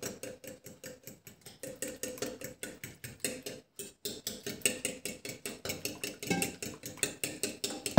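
Metal fork whisking egg in a ceramic bowl, clicking against the bowl several times a second with a short break about four seconds in, while water is poured in from a kettle.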